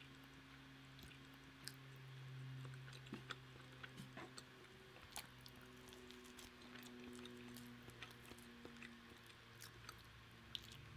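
Faint chewing and small wet mouth clicks of someone eating pulled roast chicken by hand, over a faint low steady hum.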